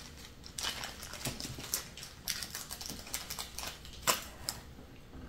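Small packaging crinkling and rustling as it is unwrapped by hand, in irregular short crackles and clicks.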